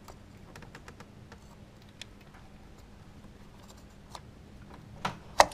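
Small plastic clicks and ticks of fingers working the wiring-harness connector on a Ford Ranger's ignition coil pack. Near the end come two sharp clicks, the second much louder, as the connector's spring-keeper latch releases and the plug comes free.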